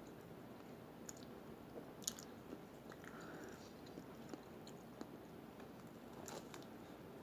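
Faint close-up chewing of a mouthful of toasted sub sandwich, with a few sharp mouth clicks, the loudest about two seconds in.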